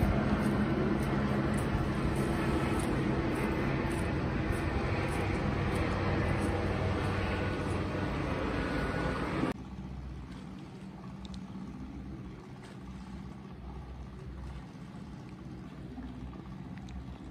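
A steady motor drone with low hum over a broad rushing noise. About ten seconds in it cuts off abruptly to a much quieter low hum.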